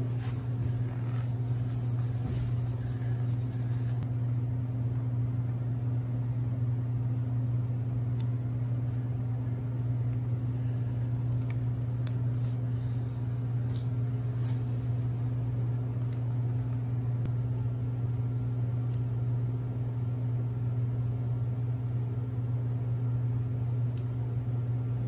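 A steady low hum holds at an even level throughout, with a few faint light clicks now and then.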